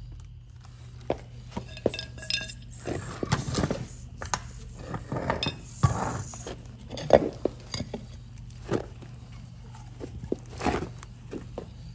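Metal gearbox parts of an airless paint sprayer clinking and knocking as they are handled and set down: irregular clicks and knocks, a few louder ones near the middle.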